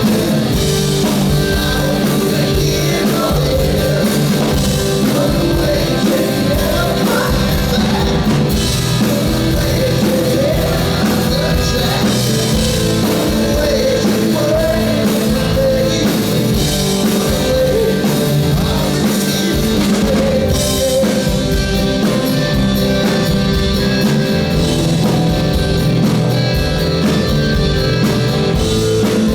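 Rock band playing live: electric guitars, bass and drum kit over a steady beat, with a wavering lead melody line through much of the passage.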